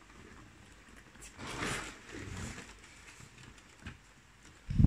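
Cardboard figure box being opened and its clear plastic blister tray handled: rustling and scraping, loudest about a second and a half in, then a low thump near the end.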